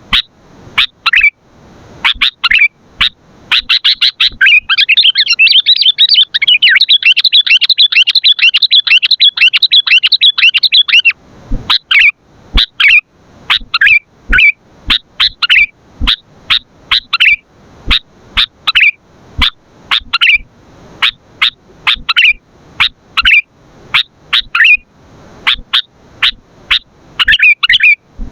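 Sooty-headed bulbul (kutilang) calling loudly: short sharp chirps repeated over and over, about one or two a second, broken by a fast continuous chattering run from about 3 to 11 seconds in.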